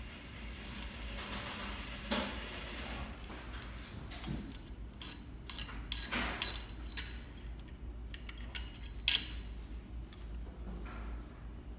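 Scattered small metallic clicks, taps and light scrapes from hand-threading a Juki MO-6700DA serger, thread and tools worked through its guides.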